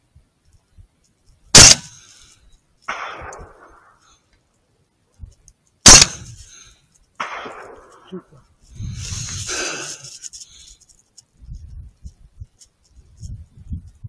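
Two rifle shots about four seconds apart, each followed about a second later by a fainter rolling sound. A shorter rustling noise comes later on.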